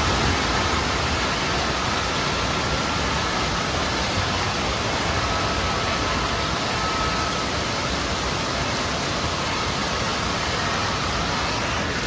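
Steady rush of running water filling an indoor water park hall, with no distinct events.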